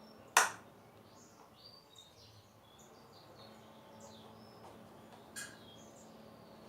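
Small birds chirping repeatedly over a low steady hum, with one loud sharp knock about half a second in and a fainter one about five seconds later.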